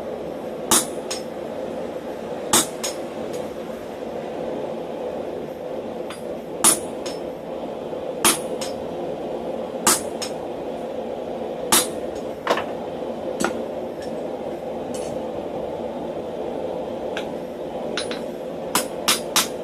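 Blacksmith's hammer striking steel at the anvil in single ringing blows, roughly one every two seconds, with a quicker run of four blows near the end. A steady hum runs underneath.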